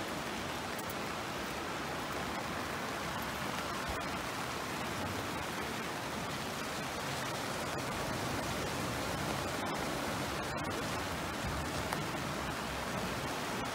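Steady rushing of the Kyll river in flood, high brown water pouring fast along its banks.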